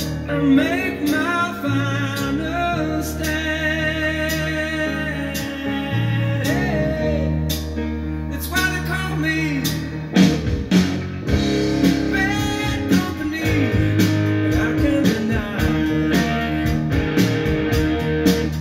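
A song with singing and guitar playing over hi-fi speakers driven by a restored Marantz 2238B stereo receiver. It is in mono, with the bass turned up a little.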